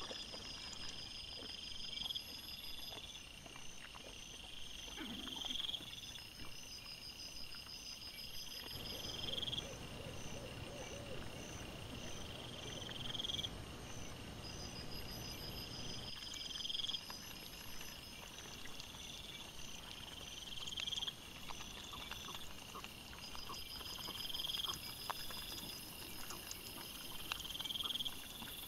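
Night-time calls of chirping insects: a short rising chirp every second or two, with quicker pulsed trills above it. Under them is faint scratching and rustling of wild boar piglets rooting through dry leaf litter, louder for a stretch in the middle.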